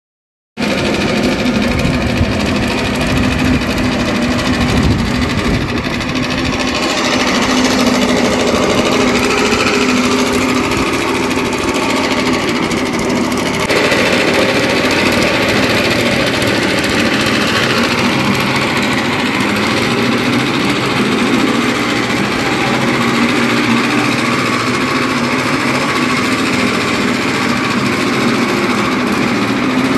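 Suffolk Super Colt cylinder lawnmower's small petrol engine running steadily as the mower is pushed along mowing grass.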